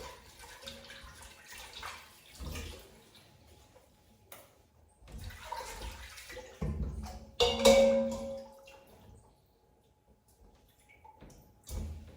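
Water running and splashing at a kitchen sink in short spells, with knocks of food and utensils being handled. A brief ringing clang comes about two-thirds of the way through.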